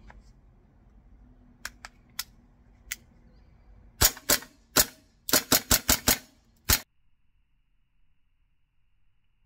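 Tokyo Marui B&T SPC9 gas blowback airsoft carbine firing about ten shots, each a sharp crack of the gas blowback cycling: a few single shots, then a fast string of six. A few light clicks come first, about two seconds in.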